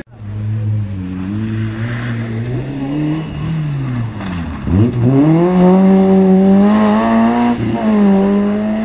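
Rally car engine on a stage run, working up through the revs, then dropping to a low note about four and a half seconds in as the car takes a tight hairpin. It then climbs hard and loud as the car accelerates out, with a brief dip for a gear change near the end.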